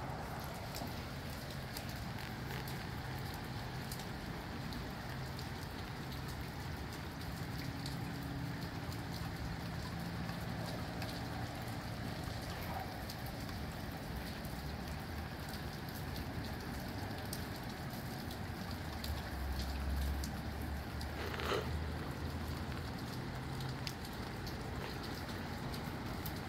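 Steady rain falling, with scattered drops ticking and a low rumble of wind that swells briefly about twenty seconds in. A short, sharper sound stands out just after that.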